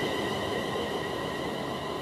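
Two electric trains, a class 350 unit and a class 390 Pendolino, passing each other at low speed: a steady rumble of wheels on rail with a high, steady whine, slowly fading.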